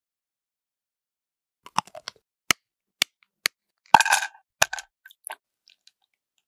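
Chunks of dark chocolate dropped into a small white pot: a few single sharp clicks, then a clattering handful about four seconds in, and a few lighter ticks after.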